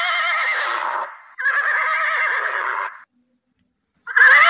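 Horse whinnying: three quavering calls of about a second and a half each. The first two come almost back to back, and the third follows after a second's silence near the end.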